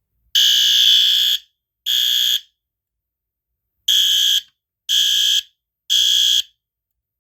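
System Sensor P2R SpectrAlert Advanced electronic fire alarm horn sounding its evacuation signal in loud half-second blasts, three in a row after a pause: the temporal-three pattern. The horn is partly muffled with sticky notes taped over it.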